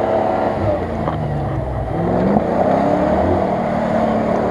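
Land Rover Discovery engine revving up and down under heavy load as the 4x4 works its way through deep mud ruts, the pitch rising and falling several times.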